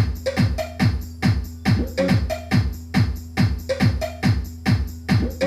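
Electronic dance music with a steady kick drum, about two and a half beats a second, each kick dropping in pitch, played at full range through a pair of Senior Sound 4-inch subwoofer drivers and picked up by a phone set some distance away.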